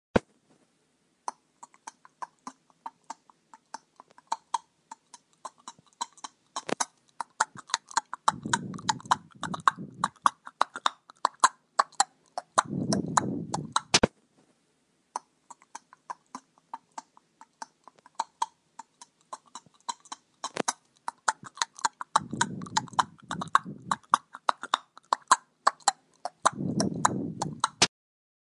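Horses: irregular sharp clicks of hooves stepping, with four low, breathy snorts, two in each half. The same stretch of sound of about 14 s plays twice.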